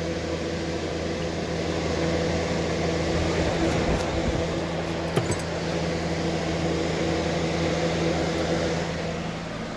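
Air conditioner's outdoor condensing unit running: a steady hum from the compressor under the rush of its fan blowing out steaming hot air. There is one brief tick about five seconds in.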